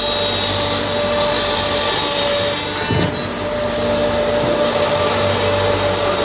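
Helix 80S wood shaving machine running: a steady hiss of cutting and of shavings pouring from the outlet chute, over a constant motor hum and a steady whine. It dips briefly about halfway through.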